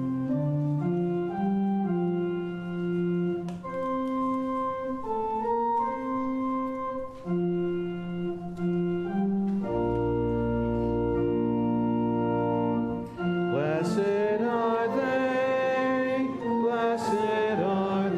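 Church organ playing the psalm refrain melody as an introduction, pausing on a long held chord with deep bass; about fourteen seconds in, singing of the refrain starts over the organ.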